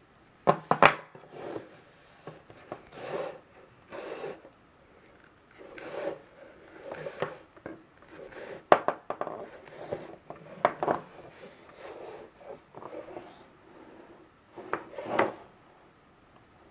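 Fingers handling and rubbing a black leather belt strap close to the microphone: irregular rubbing and scuffing with a few sharp clicks.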